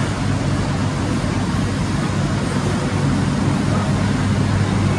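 Steady room noise of a large, busy indoor hall: a low hum under an even hiss, with no distinct events.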